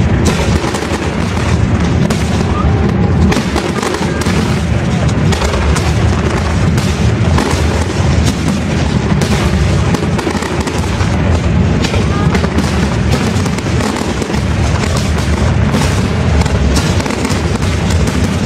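Fireworks display: aerial shells bursting in rapid, overlapping succession, booms and crackle following one another without a pause.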